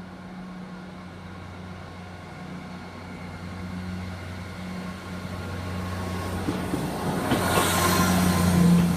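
Class 158 diesel multiple unit arriving along the platform, its underfloor diesel engines running with a steady low hum that grows steadily louder. Wheel and rail noise swells near the end as the unit draws alongside.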